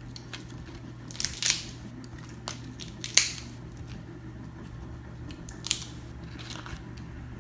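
Snow crab leg shells being cracked and snapped apart by hand: a series of sharp cracks and crunches, the loudest about three seconds in.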